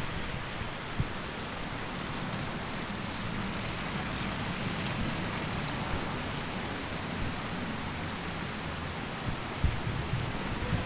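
Wet snow falling heavily, a steady even hiss like light rain, with a few short low thumps about a second in and again near the end.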